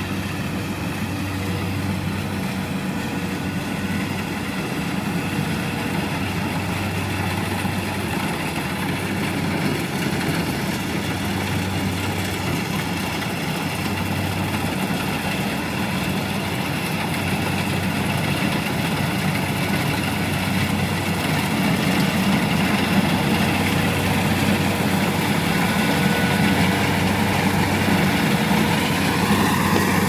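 Compact tracked rice combine harvester running steadily while cutting rice: a constant engine hum with machinery noise, slowly growing louder as it comes closer.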